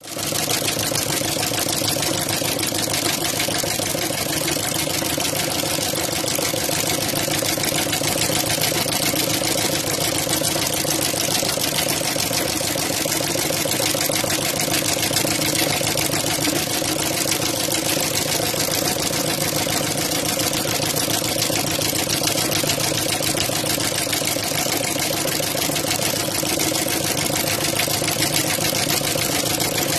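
Chain-stitch embroidery machine running continuously at a fast, even stitching rhythm as it sews a chain-stitch pattern into cloth.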